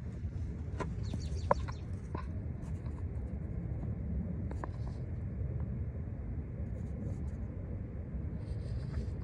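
A steady low rumble, with a few faint bird chirps and light clicks in the first two seconds.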